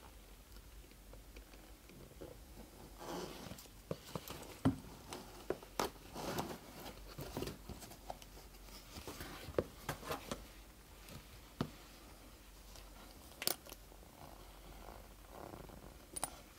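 Shiny leather boots being handled and turned over: irregular soft rustles and swishes of the material, with scattered sharp clicks and knocks, and a zip being fingered near the end.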